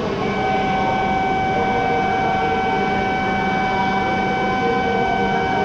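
A steady electronic warning tone sounds for about five and a half seconds, given shortly before the departure of an E7 series Shinkansen. Under it is the steady hum of the train standing at the platform.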